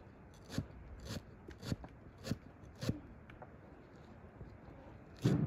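Cleaver chopping green onions and cilantro on a thick wooden stump board: five even chops about half a second apart, then a quieter stretch and a heavier knock near the end.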